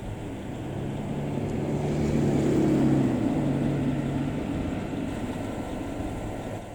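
A motor vehicle passing by: a low engine rumble with a steady hum swells to its loudest about two and a half seconds in and then fades away.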